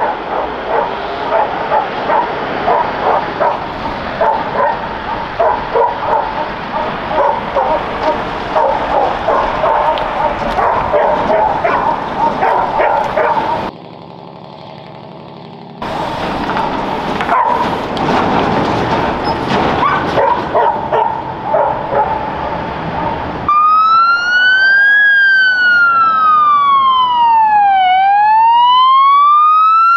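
Several dogs barking over one another, broken off abruptly by a short quieter stretch. About three-quarters of the way in, an emergency vehicle siren starts, wailing slowly up and down and louder than the barking.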